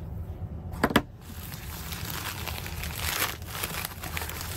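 Plastic mailer packaging being pulled open and handled: two sharp clicks about a second in, then crinkling, rustling plastic.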